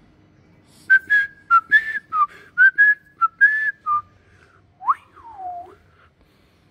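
A person whistling a quick run of about eight short notes, then one rising whistle and a slower falling one.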